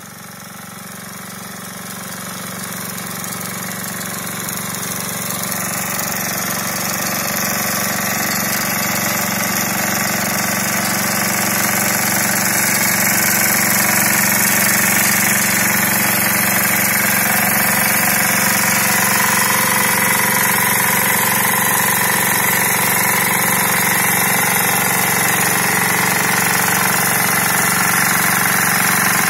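Walk-behind two-wheel tractor's engine running steadily as it drives a rear rotary tiller through soil. It grows louder over the first dozen seconds as the machine comes closer, then holds steady.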